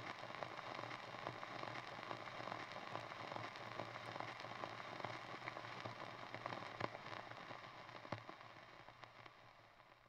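Faint vinyl record surface noise: a soft hiss with many small crackles and pops, fading out near the end.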